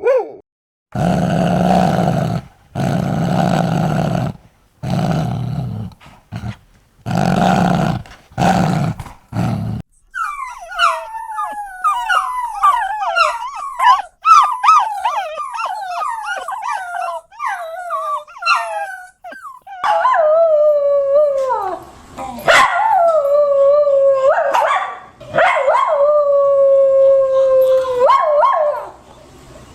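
Dog vocalizing: first five or six low, rough growls of a second or two each, then a quick run of high wavering whimpers and yips, then several long howls that slide slowly down in pitch.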